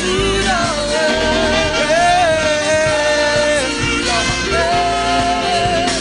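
Live gospel praise song: singers holding long, sliding notes into microphones over a sustained instrumental accompaniment.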